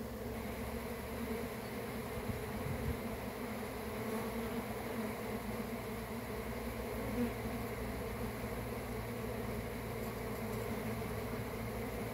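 A colony of honeybees crowded on the comb, buzzing in a steady, dense hum.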